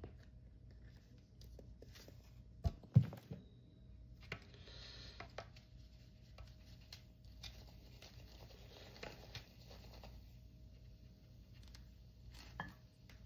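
Faint handling sounds of mixing baking soda into ketchup and mustard in a plastic cup. Two sharp knocks about three seconds in are the loudest, then a spoon scrapes and stirs inside the cup, with scattered clicks and taps and one more knock near the end.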